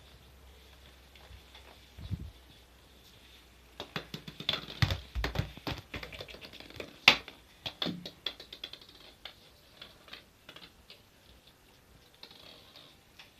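A flurry of small taps and knocks starting a few seconds in, with a couple of dull thumps and one sharper knock about halfway, then tapering off.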